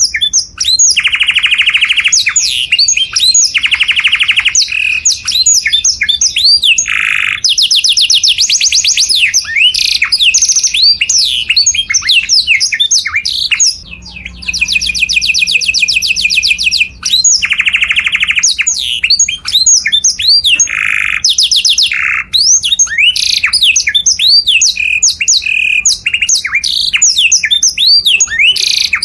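Canary singing a long, continuous song of fast trills and lower rolls mixed with quick swooping notes, pausing only briefly a couple of times.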